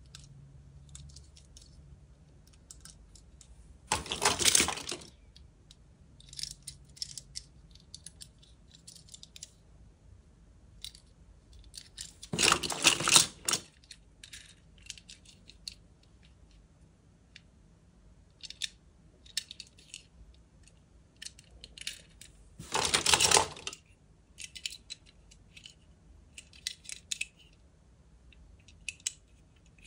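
Diecast metal toy cars clatter and clink against one another in a box full of them, in three bursts of about a second each, roughly nine seconds apart. Between the bursts come small clicks as a car's body and wheels are handled.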